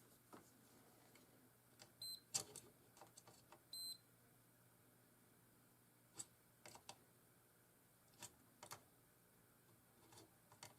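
Two short, high beeps from a digital multimeter on test, about two and four seconds in, among faint scattered clicks and taps of the probes and handling on a circuit board.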